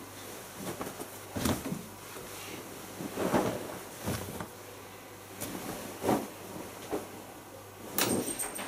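Irregular knocks and clunks, about five in all with the loudest near the middle and near the end, over a steady low hum: handling sounds from loading laundry into a front-loading washing machine.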